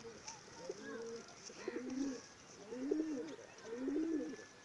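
Domestic pigeons cooing: a series of low, rising-and-falling coos, about five phrases.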